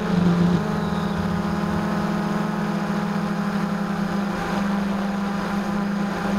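Blade 350 QX2 quadcopter's electric motors and propellers droning steadily in flight, heard from the onboard camera.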